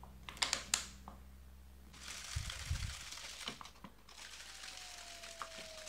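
Thin plastic water bottle being capped by hand with a few clicks, then shaken, its walls crinkling with irregular small ticks as rosin crumbs dissolve in solvent to make liquid soldering flux.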